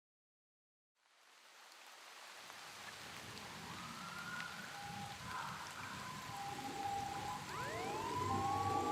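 Police sirens fade in from silence and grow steadily louder, like police cars approaching. Near the end a wailing tone sweeps up in pitch.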